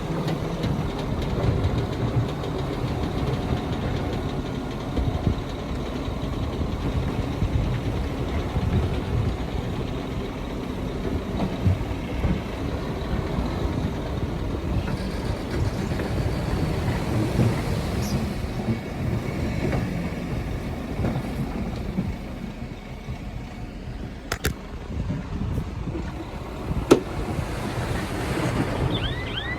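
Heavy diesel earthmoving machinery running and working, a steady low engine rumble that eases somewhat after about two-thirds of the way through. Two sharp metallic knocks come near the end.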